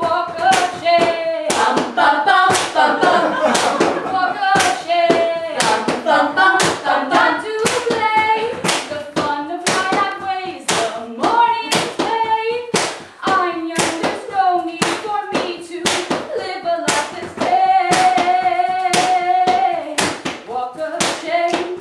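Hand-clapping in a steady beat, about two claps a second, with voices singing a melody over it; one note is held for about two seconds near the end.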